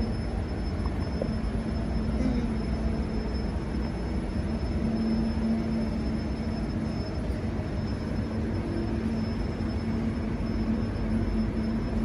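Alstom C-series electric railcar's traction equipment running: a steady low hum over a rumbling drone, swelling a little a few times.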